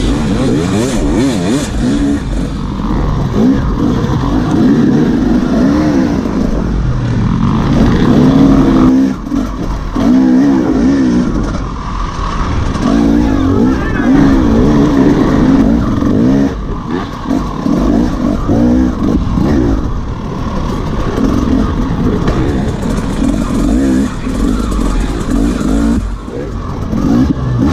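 Dirt bike engine ridden hard, heard close up from the rider's position. The pitch keeps rising and falling as the throttle opens and closes, with brief drops in level every few seconds.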